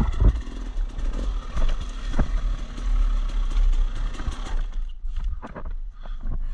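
Dirt bike engine running, with knocks and clatter throughout and a loud knock right at the start. About three-quarters of the way in the engine sound drops away, leaving scattered knocks and rustling.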